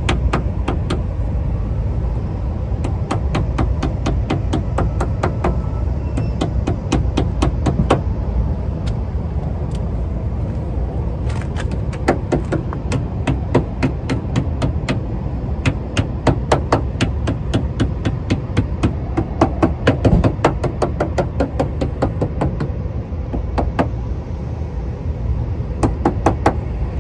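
Repeated sharp light taps of a hand tool working rubber edge trim onto a car door's metal edge, coming in irregular runs of several a second, over a steady low rumble.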